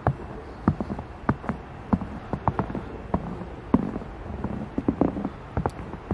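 Footsteps crunching in snow: a person walking, with irregular crunches several times a second.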